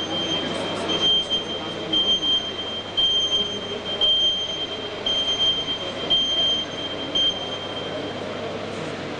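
Ambulance backup beeper: a steady high beep about once a second as the vehicle manoeuvres, stopping near the end, over a murmuring arena crowd.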